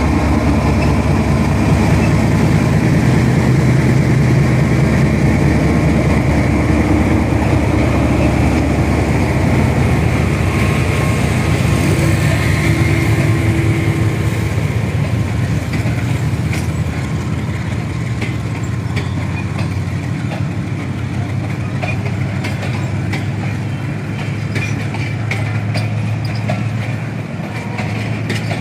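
Pakistan Railways GEU-40 diesel-electric locomotive pulling a passenger train out past the platform, its engine loudest through the first dozen seconds. It then fades as the coaches roll by with repeated clicking of wheels over rail joints.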